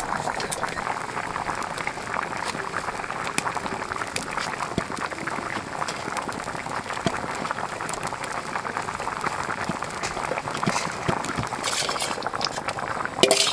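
A pot of potato-and-cauliflower curry boiling hard, a steady crackle of bubbling. Near the end come a few sharper scrapes of a metal spoon on a steel bowl.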